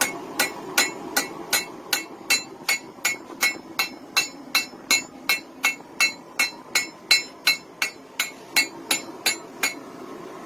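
Hand hammer striking a hot railroad spike on an anvil in a steady rhythm, close to three blows a second, each blow with a short metallic ring.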